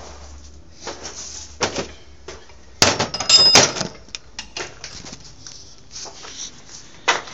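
Metal clanking and knocking, with a loud cluster of clanks about three seconds in that rings briefly, as of steel parts striking each other.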